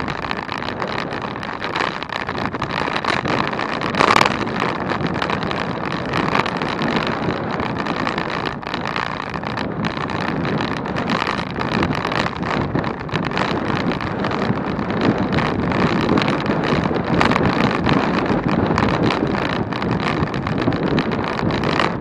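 Steady wind rushing over the microphone of a bicycle ridden at speed, with a brief louder gust about four seconds in.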